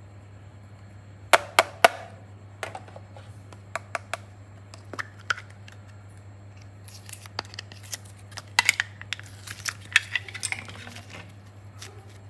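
Hands handling small plastic clay tubs and soft modelling clay over a glass dish: a few sharp plastic clicks and taps, then crackly squishing and peeling from about seven seconds in, over a steady low hum.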